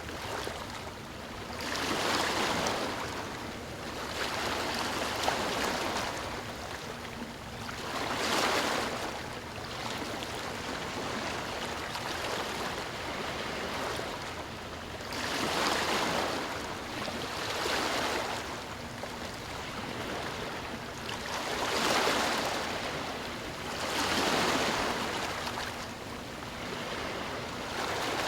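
Sea waves breaking and washing in, the surf noise swelling and fading every few seconds.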